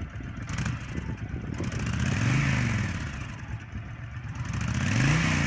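2007 Honda VTX1300C's liquid-cooled 1300 V-twin idling and revved twice with the throttle, about two seconds in and again near the end, the pitch rising and falling back each time.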